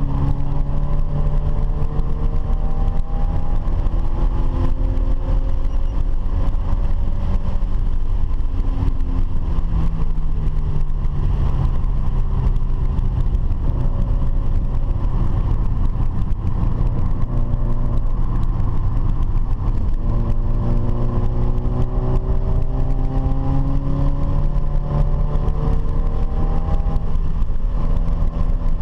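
Car engine pulling hard, its pitch climbing over several seconds and then dropping back at each gear change, several times over. A steady low road rumble runs underneath.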